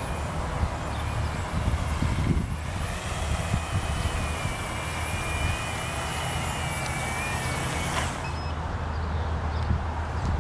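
Wind buffeting the microphone with a heavy low rumble, over the electric motors and propellers of a small remote-controlled aircraft flying in strong wind. A thin, wavering high whine comes in after about three and a half seconds and cuts off about eight seconds in.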